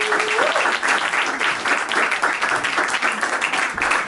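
An audience applauding, a dense steady patter of many people clapping at once.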